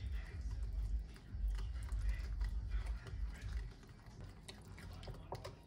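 Small wooden spoon stirring a thick chili-paste sauce in a ceramic bowl: irregular light clicks and taps of the spoon against the bowl, with a low rumble in the first few seconds.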